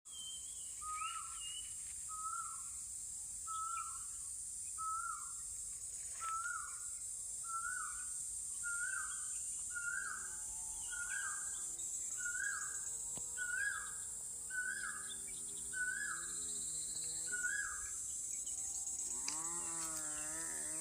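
A bird repeats a short whistled call about once every 1.3 seconds, over a steady high-pitched insect drone. About halfway through a faint human voice starts singing or humming, and it grows louder near the end as the bird calls stop.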